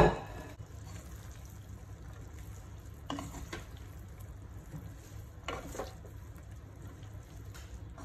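Two wooden spatulas tossing grilled beef with shredded green mango and herbs in a pan: a few soft scraping strokes, about three and five and a half seconds in and faintly near the end, over a low steady hum.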